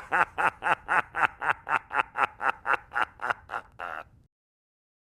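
Theatrical evil villain laugh, a rapid run of "ha-ha-ha" syllables at about four to five a second, each falling in pitch. It fades and ends in one longer drawn-out syllable about four seconds in, then stops.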